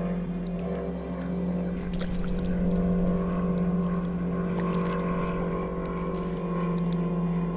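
Background music: a steady sustained chord over a bass line that changes note every couple of seconds, with a few faint clicks and splashes from handling the fish in the net.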